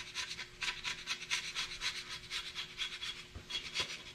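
Hand scraper scraping the oil cooler gasket surface on a cast-iron 12-valve Cummins block, in quick short strokes about four a second, to clean off old gasket residue before the oil cooler goes on.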